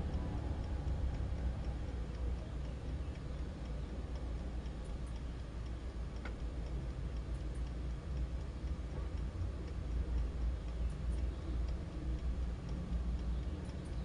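Westclox mechanical wind-up alarm clock ticking steadily while it runs toward its alarm time, over a steady low hum.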